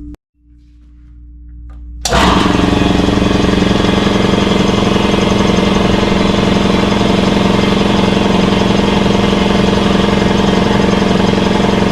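Snap-on 30-gallon electric air compressor starting up: a low hum swells briefly, then about two seconds in the pump kicks on and runs loud and steady, filling the empty tank with air.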